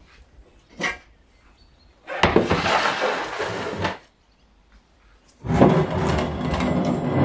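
Objects slid across a wooden workbench: a plastic storage box scraped into place, then a rusty bar dragged over the boards. Each makes a rough scrape lasting under two seconds, with a brief knock just before the first.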